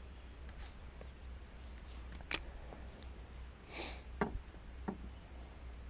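Quiet stretch of small handling sounds: a few sharp clicks from the spinning reel and rod, and one sniff a little past halfway, over a low steady hum.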